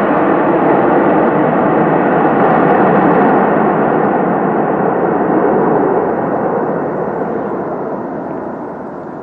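Airbus A330 jet engine noise during landing: a loud, steady rushing sound that dies away over the last few seconds.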